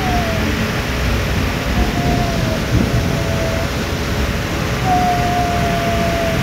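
Steady rushing underwater ambience, a dense low rumble and hiss, with a thin whistling tone that sounds three times, each held for about a second and drifting slightly down in pitch.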